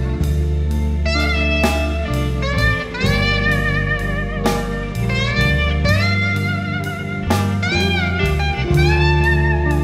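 Band music with no singing: a lead guitar plays bent, wavering notes over a steady bass line and regular drum beats.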